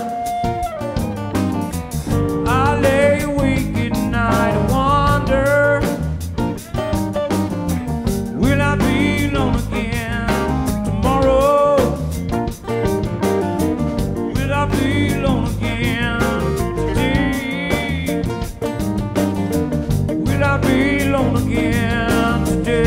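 Live jam-rock band playing: a male lead singer sings phrases over strummed acoustic guitar, electric guitar, keyboard and drum kit.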